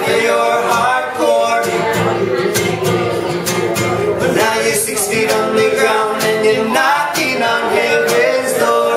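Live acoustic song: a steel-string acoustic guitar strummed in a steady rhythm under male singing into microphones.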